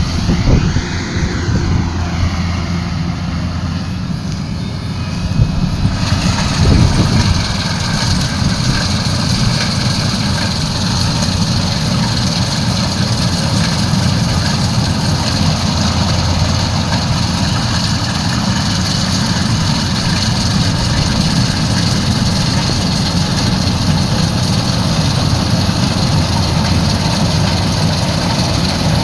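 Kubota combine harvester's diesel engine running steadily under load. The sound grows slightly louder and harsher about six seconds in.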